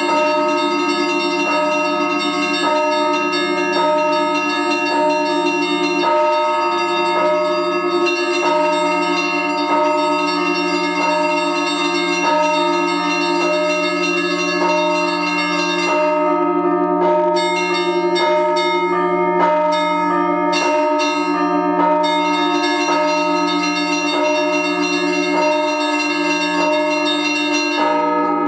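Russian Orthodox church bell ringing (zvon) on a full set of bells, played in an improvised pattern: quick ringing of the small high bells over regular strokes of the larger bells. About halfway through, the fast high ringing breaks into separate strokes for several seconds, then resumes.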